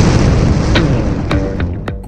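Fading tail of a loud boom-like intro sound effect: a noisy rush dying away steadily, with a few short clicks and brief musical tones in the second half.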